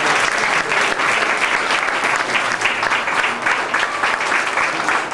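A crowd of parents applauding, dense clapping that starts to thin into separate claps near the end.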